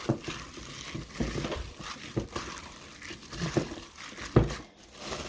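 A plastic-gloved hand kneads and presses ground-meat siomai filling in a stainless steel bowl: wet squishing and plastic crinkling, with about half a dozen soft thumps at irregular times, the loudest near the end.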